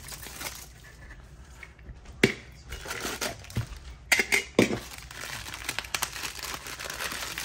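The ring-pull lid of a sealed Funko Soda can snapping open with a sharp pop about two seconds in and being peeled off the metal can. A crinkling black plastic bag is then pulled out and squeezed, with crackling through the rest.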